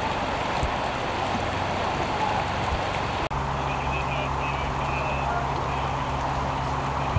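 Flood-swollen creek water rushing steadily along its channel. After a cut about three seconds in, a low steady hum runs beneath the water.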